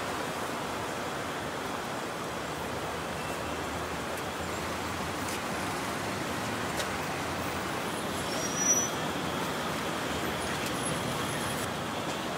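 Steady city ambience of distant road traffic, with a brief high chirp a little past halfway.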